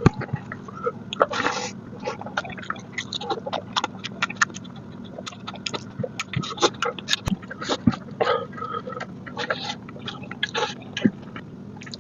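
Wet, close-up chewing and lip-smacking of someone eating mutton curry with rice, with many small irregular smacks and clicks following one another.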